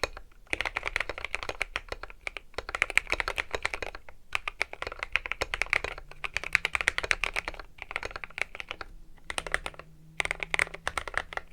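Typing on a Keychron Q1 mechanical keyboard with Milky Gateron Yellow linear switches and SA-profile keycaps, modded with force-break and Holee stabilizer mods: fast runs of keystrokes broken by brief pauses about four or five times.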